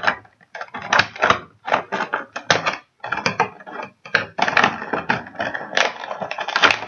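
Stiff clear plastic toy packaging crackling and crinkling in irregular bursts as it is pulled and worked apart by hand to free the figure inside.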